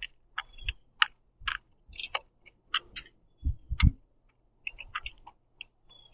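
Birds pecking at sunflower seeds on a wooden platform feeder: irregular sharp clicks and taps of bills on seed and wood, with a few low thumps about three and a half seconds in.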